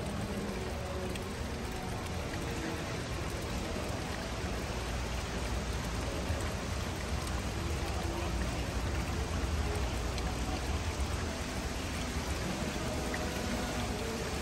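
Steady rush of running or falling water, an even hiss without breaks.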